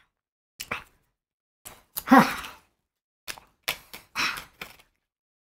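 A man's breathy exhales and sighs about once a second, the loudest a voiced sigh about two seconds in that drops in pitch. He is breathing through the burn of Carolina Reaper pepper in his throat.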